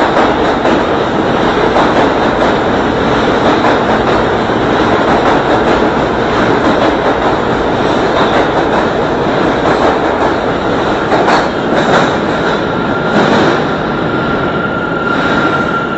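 R160 subway train pulling out along the platform and into the tunnel, its wheels clattering over the rails, with a few sharper knocks late on. The noise eases a little as the last cars leave, and a thin steady high tone comes in near the end.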